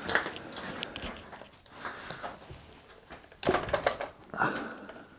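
Irregular scrapes, knocks and rustles of a Suzuki DF4 outboard's powerhead being worked loose and lifted off its lower housing by hand. There are louder bursts a bit over three seconds in and again about a second later.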